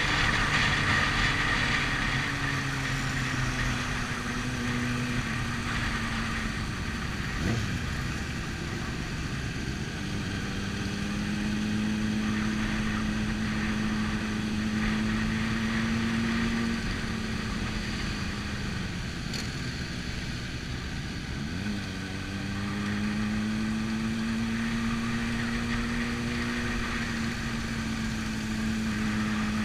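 Motorcycle engine heard from on board, running steadily at low speed. Its pitch dips sharply and climbs back twice, about a quarter of the way in and again about two-thirds of the way in.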